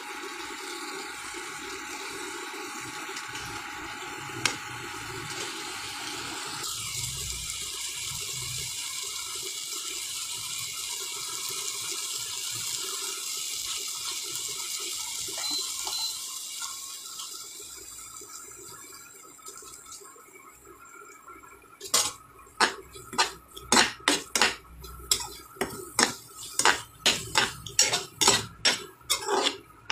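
Shidol shutki chutney sizzling in a nonstick frying pan, a steady hiss that fades away past the middle. In the last third a spatula knocks and scrapes against the pan several times a second as the mixture is stirred.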